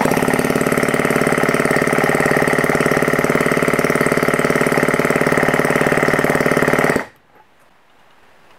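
Electric drill spinning the crankshaft of a 50cc single-cylinder two-stroke engine to crank it over for a compression test, with a compression gauge in the plug hole: a steady motor whir with a fast, even pulse, stopping abruptly about seven seconds in.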